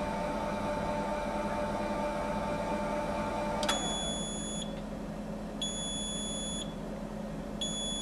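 Forcipol 1V grinder-polisher running with a steady motor whine, which stops a little under four seconds in. The unit then beeps, a high beep about a second long repeated every two seconds.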